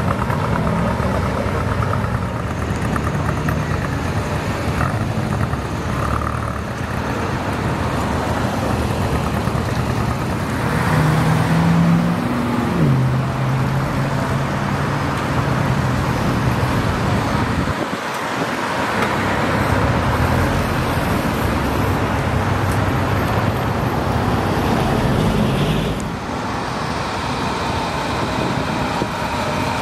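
Classic cars driving past one after another with their engines and exhausts running. One engine note rises and then steps down about eleven to thirteen seconds in, and another rises and falls about twenty-five seconds in.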